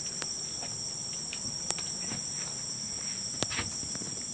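Steady high-pitched chorus of forest insects, with a few sharp clicks over it.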